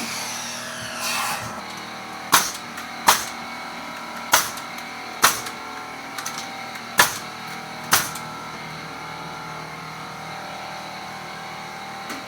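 Nails being driven into wooden framing: six sharp strikes at uneven intervals over about six seconds, with a steady mechanical hum underneath.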